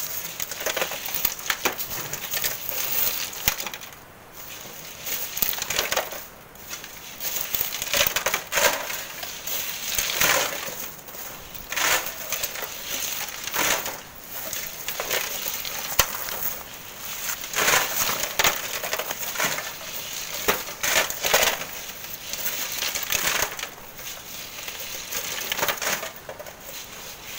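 Hand tools scraping and scooping sand and grit into wheelbarrows during manual sand mining, a gritty crunching stroke every second or two.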